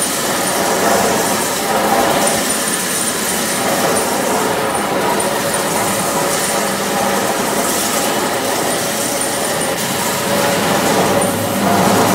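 Wet stone-floor grinding machine running: a 3-horsepower electric motor drives the grinding stones across a wet stone floor, giving a steady, loud mix of motor hum and grinding noise. The noise brightens and dulls a little every few seconds.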